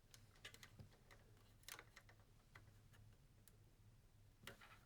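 Near silence with a few faint, scattered small clicks as a plastic button is handled and tried in a hole too small for it, over a low steady hum.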